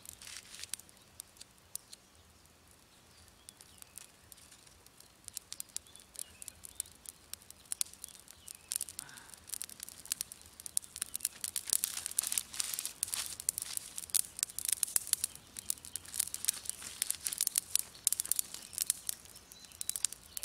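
A pile of dry twigs and brushwood burning, crackling with sharp snaps. The crackles are sparse at first and grow thick from about halfway as the flames take hold. A few faint bird chirps sound in the first half.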